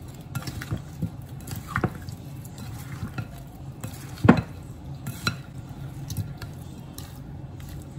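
Black plastic slotted spoon tossing raw shrimp and sliced sausage in a mixing bowl: soft stirring with scattered knocks of the spoon against the bowl, the loudest about four seconds in.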